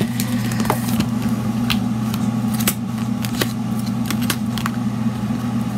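A steady low hum from a machine or appliance, with scattered sharp clicks and taps as a metal die sheet and a plastic stamp case are handled on a table.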